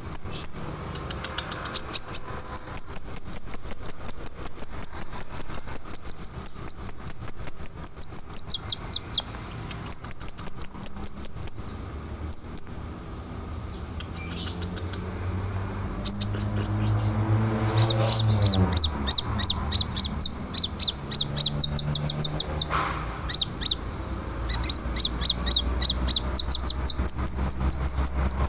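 Scarlet minivet singing: long, rapid runs of high, sharp chirps repeated many times a second, broken by short pauses. A low hum slides down in pitch about two-thirds of the way through.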